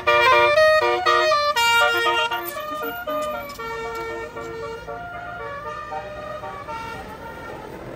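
Tour bus's basuri musical air horn playing a rapid 'telolet' tune of short stepped notes. It is loud for the first two or three seconds, then quieter as the melody carries on.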